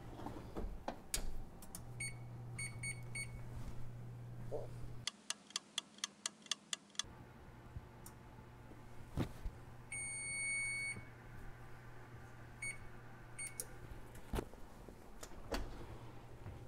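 Frigidaire Gallery Series wall oven's control panel beeping: a few short beeps, a quick run of clicks, then one long beep of about a second as the oven timer runs out, followed by a few more short beeps. A steady low hum runs underneath.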